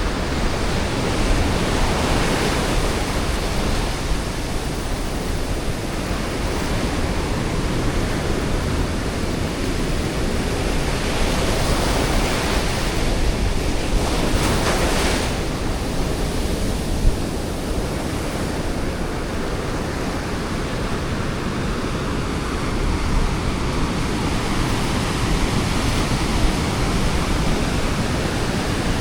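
Ocean surf: waves breaking and washing ashore in a continuous rush, with a louder surge about halfway through.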